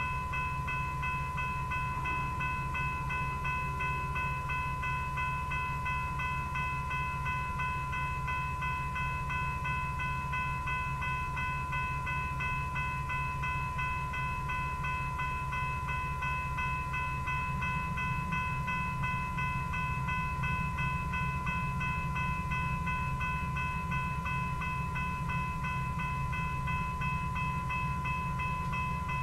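Railroad grade crossing bell ringing continuously in an even, quick repeating ding, over a steady low rumble that grows louder about two-thirds of the way through.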